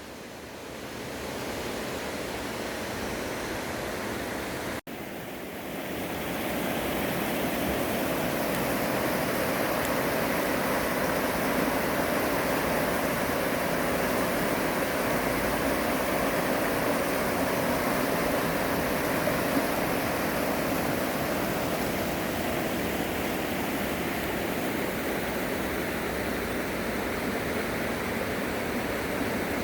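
Mountain valley stream, water rushing in a steady roar. It cuts out for an instant about five seconds in and comes back a little louder.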